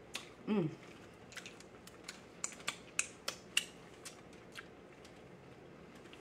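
A short vocal sound from a woman about half a second in, then a scattered run of about a dozen sharp mouth clicks and lip smacks as she eats, ending a couple of seconds before the end.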